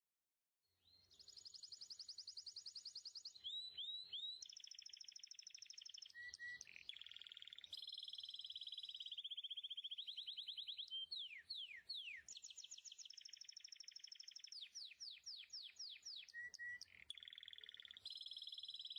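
A songbird singing a long, varied song: rapid high trills switching between pitches, broken by runs of quick downward-sweeping notes.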